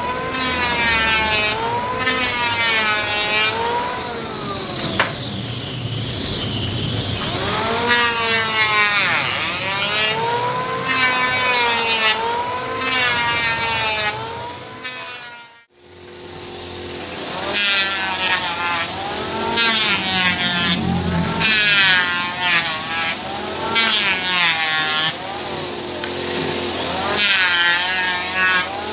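A hand plane's steel blade worked in repeated back-and-forth strokes. Each stroke gives a rubbing scrape with a squealing tone that rises and falls, roughly one stroke every second or two, and the strokes come faster about halfway through.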